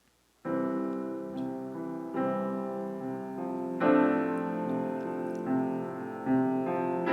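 Piano music starting about half a second in: slow, held chords that change every second or so.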